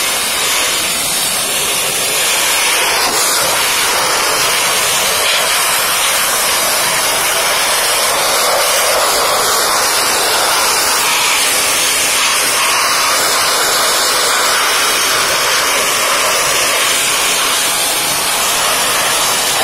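Pressure washer wand spraying a high-pressure jet of water into a car engine bay, a loud steady hiss of spray rinsing off degreaser.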